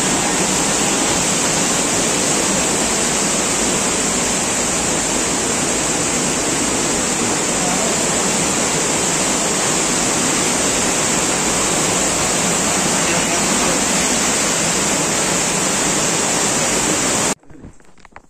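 Loud, steady rushing hiss with no distinct tones, holding an even level and cutting off abruptly near the end.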